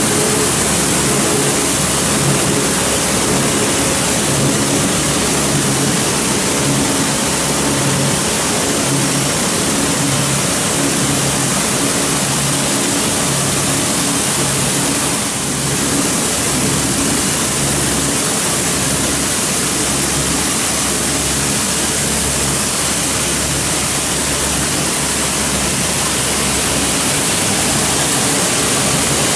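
Machinery of a plastic film recycling extrusion and pelletizing line running steadily: a loud, even rushing noise over a few low steady hum tones, with a brief dip about halfway.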